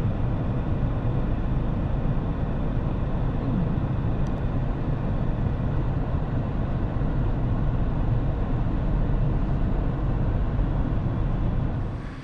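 Steady car rumble heard from inside the cabin while driving: low road and engine noise that cuts off just before the end.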